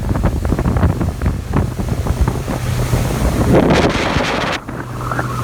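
Motorboat under way, powered by a Mercury 115 HP four-stroke outboard: wind buffets the microphone and water rushes and slaps along the hull over a low, steady engine hum. A louder rush of spray comes a little past halfway.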